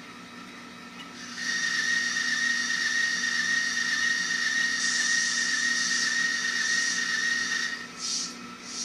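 Tsunami sound decoder in an Athearn N-scale F59PHI model diesel locomotive, playing through its small speaker: a low idling hum, then a loud steady hissing sound with one high tone held for about six seconds, followed by two short hisses near the end.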